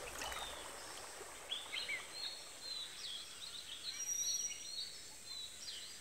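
Faint birdsong ambience: scattered short, high chirps and twitters of small birds over a soft hiss.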